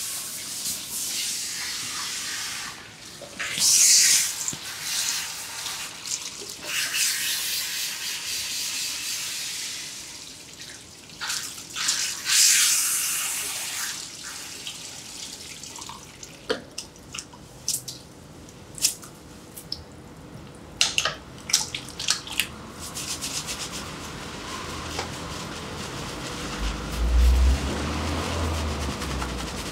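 Hair being washed at a barber's shampoo sink: water running and splashing, with fingers rubbing through wet hair. Sharp clicks and taps come through the middle, and a low thump sounds near the end.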